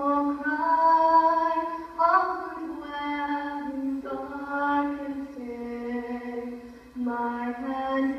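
A young girl singing solo into a microphone in slow, long held notes, heard through a television's speaker.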